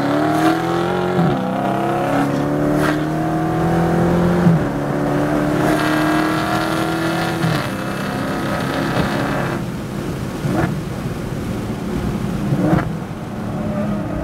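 Dodge Charger Hellcat's supercharged V8 heard from inside the cabin under hard acceleration. Its note climbs in pitch through the gears, with an upshift about every three seconds. About ten seconds in it comes off the throttle as the car brakes for a corner, with a couple of short blips.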